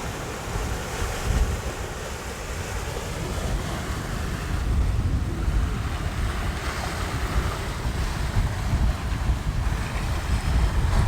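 Ocean surf washing on the shore, with wind buffeting the microphone in a low, gusting rumble.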